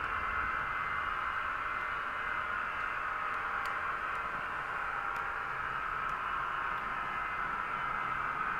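Bachmann Blue Pullman model train running along the layout track: a steady hiss with a few faint ticks.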